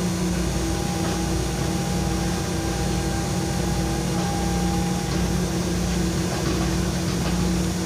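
Hitachi long-reach excavator's diesel engine running steadily under work, a constant droning hum with no change in pitch, while the long arm lowers the bucket.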